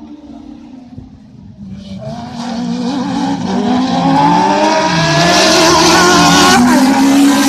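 A pack of 1600 cc four-wheel-drive autocross prototype buggies racing through a dirt bend, several engines revving up and down together. They are faint at first and get loud from about two seconds in as they close on the microphone, and one engine's pitch drops sharply near the end.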